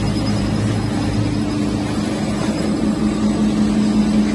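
FS SHARK N1100 inspection machine running, a steady mechanical hum from its motors and belt transport with a low drone underneath that grows a little stronger near the end.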